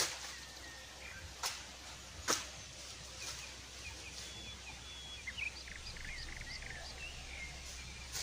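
Forest ambience with small birds calling in thin whistled notes and a short rapid trill, broken by two sharp cracks or knocks about a second and a half and two seconds in.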